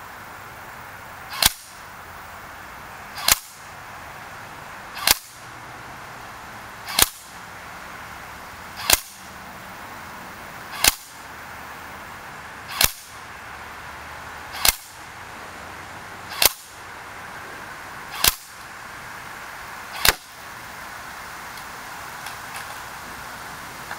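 WELL M4A1 airsoft rifle fired at a target one shot at a time: eleven sharp cracks, evenly spaced about two seconds apart.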